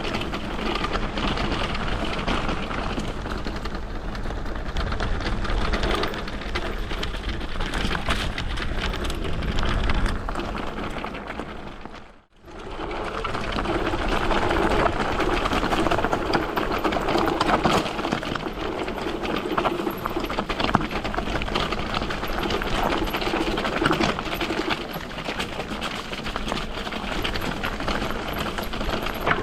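Riding noise of an electric off-road bike on a mountain trail: a continuous rushing, rattling noise of tyres and chassis over the ground. It drops out briefly about twelve seconds in.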